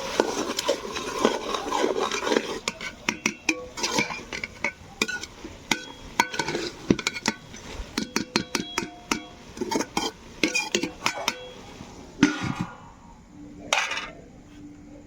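Metal utensils clinking, knocking and scraping against a cooking pot as food is stirred: many quick sharp clinks, thinning out near the end with a couple of last knocks.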